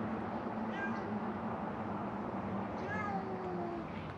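Hungry feral cats meowing, two short calls about two seconds apart, over a steady low hum.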